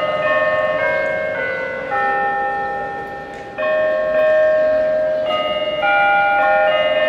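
Bells chiming a slow melody, each note struck and left ringing under the next.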